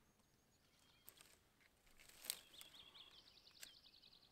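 Faint birdsong in a quiet morning, ending in a rapid high trill, with a few sharp snaps of twigs being broken for kindling.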